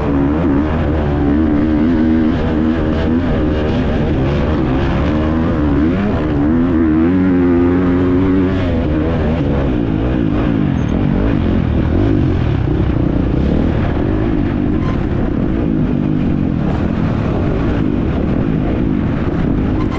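Husqvarna FC350 motocross bike's four-stroke single-cylinder engine running hard under racing throttle, its pitch repeatedly rising and falling as the rider opens and shuts the throttle.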